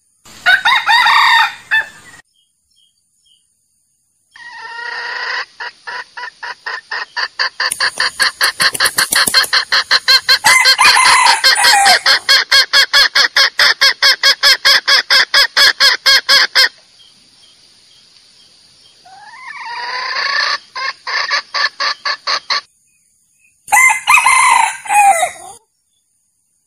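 Junglefowl lure recording used for trapping: a rooster crows at the start, then a long run of rapid clucks, several a second, for about twelve seconds. Another call follows, then a second crow near the end, each part cutting off abruptly.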